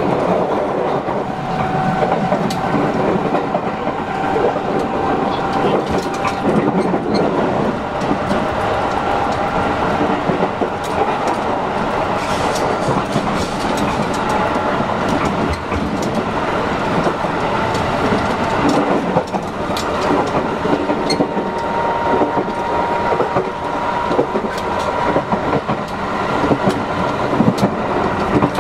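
JR West 223 series electric multiple unit motor car (KuMoHa 223) running along the line: a steady rumble of wheels on rail with scattered sharp rail-joint clicks. Faint steady motor whines come and go, from the VVVF inverter-driven traction motors.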